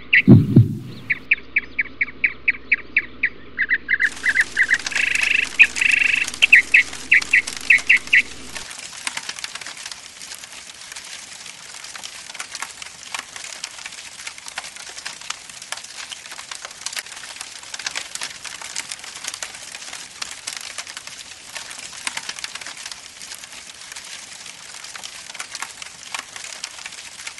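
A bird chirping in a fast, even series, about four chirps a second, with one low thud about half a second in; the chirping stops about eight seconds in. From about four seconds in, a dense crackling hiss sets in and carries on steadily: fire crackling.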